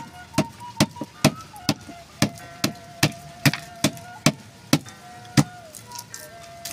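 Wooden club pounding a lemongrass stalk on a plastic tub lid to bruise it: about a dozen sharp, even knocks, roughly two a second, stopping about a second before the end.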